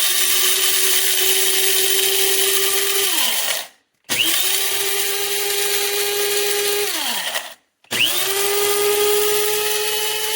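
KRUPS Fast Touch 200-watt electric blade coffee grinder pulsed three times while chopping coffee beans. Each pulse is a loud motor whine that winds up quickly, runs steadily for about three seconds, then falls in pitch as the motor spins down. The third pulse is still running at the end.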